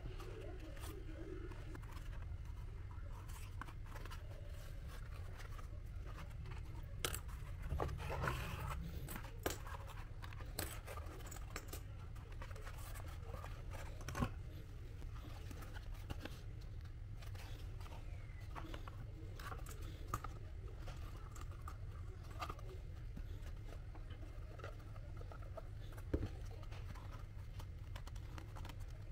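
Cardboard being cut and handled by hand: scattered snips, scrapes and small clicks, busiest about seven to nine seconds in, over a steady low hum.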